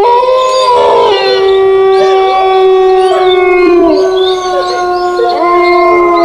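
Eerie horror soundtrack of several long, howl-like held tones layered together, with no beat. The tones slide up into place at the start and bend downward near the end.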